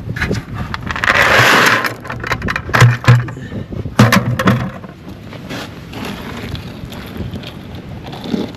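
A bucket of small gravel dumped onto a steel diamond-plate sheet: a rush of pouring stones for about a second, then several sharp clattering knocks.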